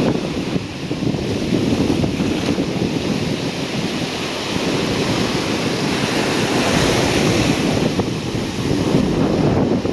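Ocean surf breaking and washing in, with strong wind buffeting the microphone. The hiss of the surf swells up about six seconds in and eases off again.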